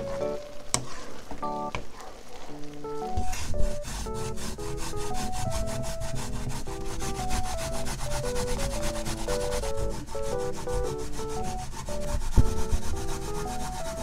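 Raw potato rubbed rapidly back and forth on a hand grater with metal teeth set in a plastic box, a steady scraping rasp from about three seconds in. Light background music with a melody plays under it.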